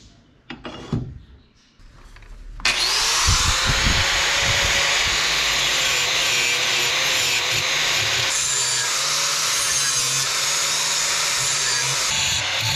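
A few knocks of the steel bar being handled at the vise, then about two and a half seconds in an angle grinder sets in abruptly and runs steadily, grinding the twisted spring-steel spear, its motor pitch wavering slightly under load.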